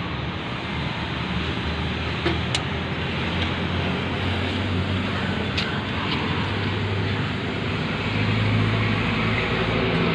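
An engine running steadily in the background, with a low even hum that grows a little louder about eight seconds in, and a couple of short sharp metallic clicks from work on the pump.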